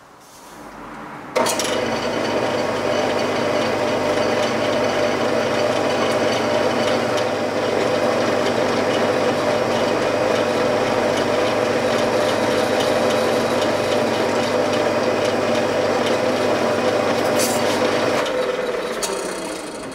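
Wood lathe running steadily with its motor hum, starting abruptly about a second and a half in and dying away near the end as it runs down.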